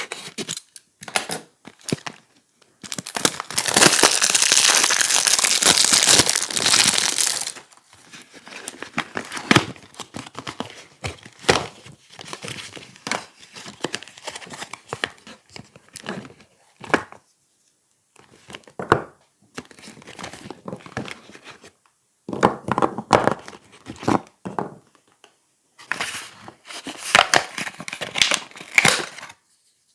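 Soap packaging being unwrapped by hand, crinkling and tearing: one long, loud stretch of it from about three to seven and a half seconds in, then short scattered crinkles and rustles, with a denser run near the end.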